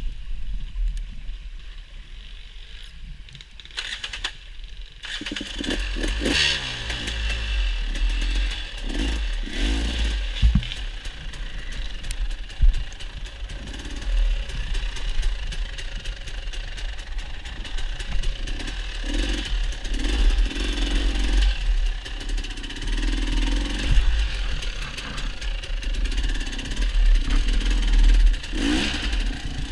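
Dirt bike engine running and revving up and down, with clatter from the bike. It is quieter for the first few seconds, then the engine pitch rises as it revs up about five seconds in.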